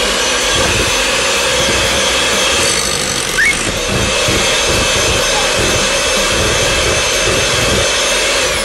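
Electric hand mixer running steadily, its beaters creaming butter and powdered sugar in a glass bowl, then winding down and stopping at the very end.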